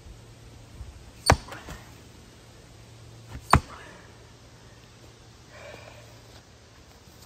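A Fiskars splitting tool striking into a large log round twice, about two seconds apart, each blow a sharp crack.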